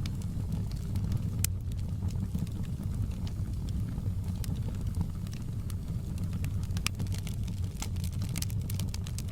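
Wood fire burning in a fireplace: a steady low rumble of flame with scattered sharp crackles and pops from the logs, coming more often near the end.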